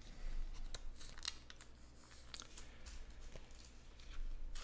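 Stacks of trading cards being handled and picked up from a mat: light, irregular clicks and rustles of card edges.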